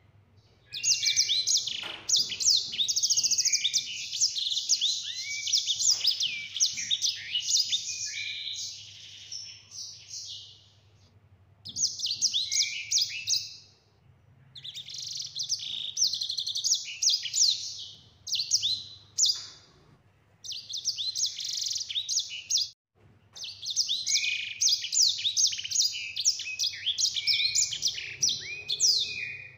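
Caged sanger finch singing: long, fast, high twittering phrases full of rapid trills, in several bouts broken by short pauses.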